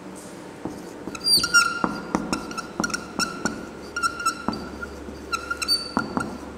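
Marker squeaking on a whiteboard as words are written: short squeals of one pitch, again and again, with sharp taps of the tip between strokes.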